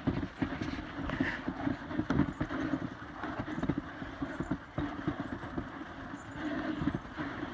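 Dog sled running over snow behind a team of sled dogs: the runners scrape along the snow, with rapid, uneven knocks and thuds from the sled and the dogs' footfalls.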